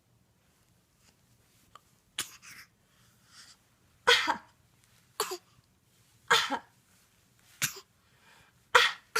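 An infant's playful fake coughs traded back and forth with an adult's imitation coughs: short single coughs about a second apart. The coughs are a game, not a sign of illness.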